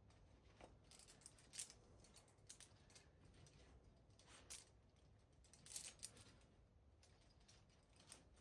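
Near silence broken by a handful of faint, irregular clicks and short rustles: climbing rope and gear being handled at the belay.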